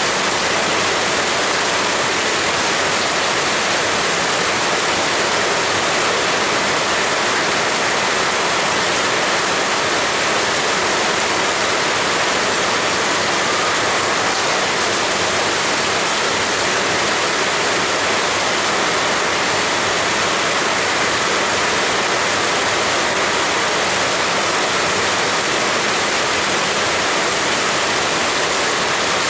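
Heavy rain falling steadily, a dense even hiss with no let-up or thunder.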